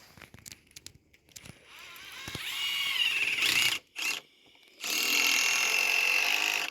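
Power drill running in bursts: it winds up with a rising whine, stops, gives a short blip, then runs steadily at a constant pitch for about two seconds near the end.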